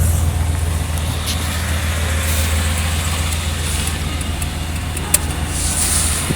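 A 1989 Chevrolet Caprice's engine idling steadily, with a single sharp click about five seconds in.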